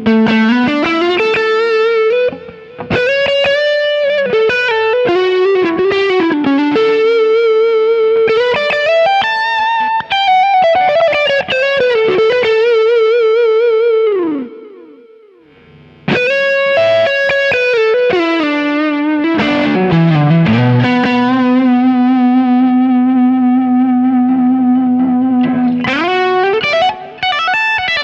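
Soloking MT-1 Telecaster-style electric guitar playing a lead line: sustained single notes with wide vibrato and string bends. The playing stops briefly about halfway, then resumes with a long bend down into a held low note.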